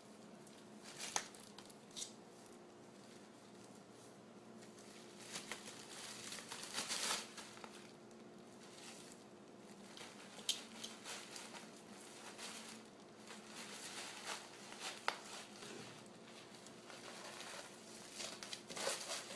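Plastic bubble wrap crinkling in bursts as a ferret pushes, noses and climbs about on it, with a few sharp clicks in between.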